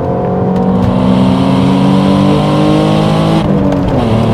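Alfa Romeo 156 GTA's 3.2-litre Busso V6 under acceleration, revs climbing steadily for about three seconds. Near the end the engine note breaks off and the revs drop away.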